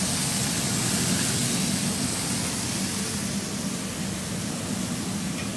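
Steady sizzling hiss of bacon and country ham frying on a hot pellet grill, with a low hum beneath it, easing slightly toward the end.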